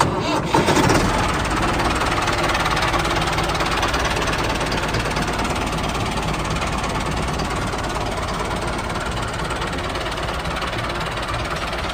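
Tractor engine running steadily with a rapid knocking beat, starting suddenly and easing off slightly in loudness.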